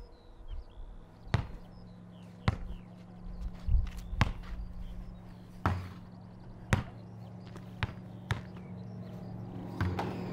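A basketball thuds about nine times at uneven intervals as it is bounced and shot at an outdoor hoop. Under it is a steady low hum, and a light aircraft's engine grows louder near the end.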